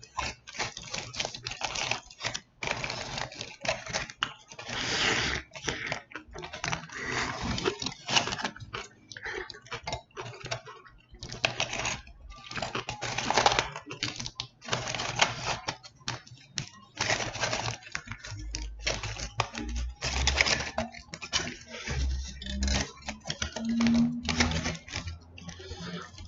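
Close-miked eating of a foil-wrapped burrito: irregular bursts of chewing and rustling foil with short pauses between them.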